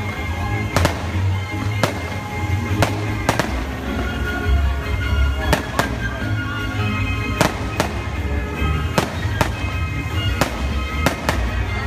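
Aerial fireworks shells bursting, sharp bangs at uneven spacing about once a second, over music with a heavy bass.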